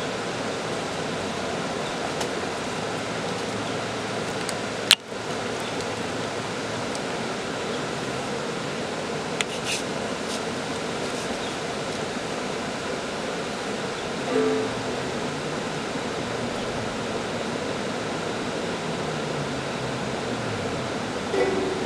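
Steady rush of a creek flowing over rock ledges, with one sharp click about five seconds in. A few plucked ukulele notes come in near the end.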